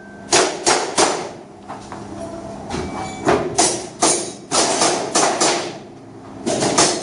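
Gas blowback airsoft pistol firing in quick strings: three sharp shots in the first second, a run of about seven shots a third of a second apart in the middle, and another string starting near the end.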